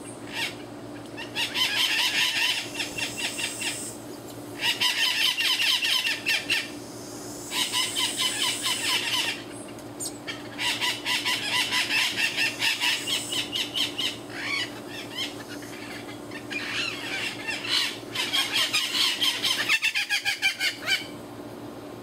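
Abaco parrots (the Bahamas race of the Cuban amazon) giving bouts of rapid, harsh chattering squawks, each bout a second or two long, with short pauses between.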